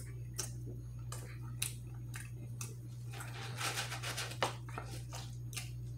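Close-miked chewing with short wet mouth clicks, and a rustle of the cardboard fry box being handled about three seconds in, over a steady low electrical hum.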